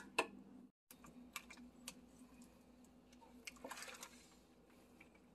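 Quiet kitchen handling noises: a spoon clicks once against a steel bowl of sauce at the start. Faint scattered ticks and a brief soft rustle follow as a raw brisket is handled on its plastic wrapping.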